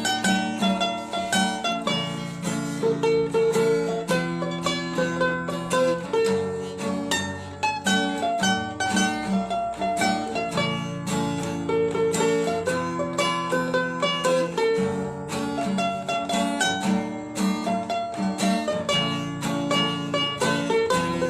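Ukulele melody: quick plucked notes over strummed chords, a cheerful tune.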